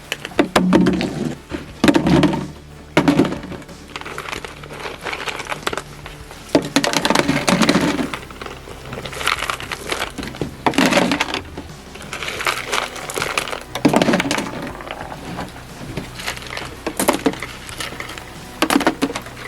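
Garden items being handled and moved about, giving irregular knocks, clatters, scrapes and crinkling.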